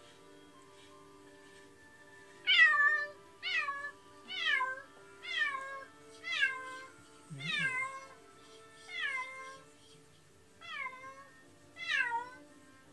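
Domestic cat meowing over and over, about once a second, each meow falling in pitch, starting a couple of seconds in, over soft background music.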